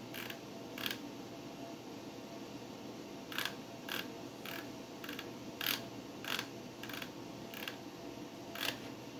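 Steady hum of an old desktop PC running, with about eleven short sharp clicks, two near the start and the rest roughly every half second from about three seconds in: hard-disk seek clicks as the ReactOS installer sets up devices.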